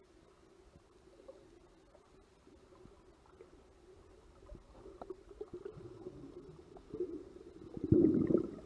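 Underwater sound through a camera's waterproof housing: a faint steady hum with scattered small clicks, swelling in the last second or so into loud, muffled water rushing and gurgling.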